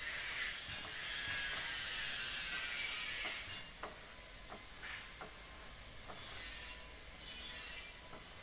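Plastic spreader scraping red spot putty across a car's painted panel to fill clear-coat runs: a hissing scrape for the first three seconds or so, then several light clicks about a second apart.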